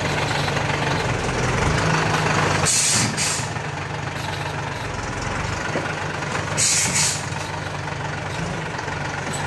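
FAW truck's diesel engine running steadily, a little louder for the first few seconds and then settling. Two short hisses of released air cut across it, one about three seconds in and another about seven seconds in.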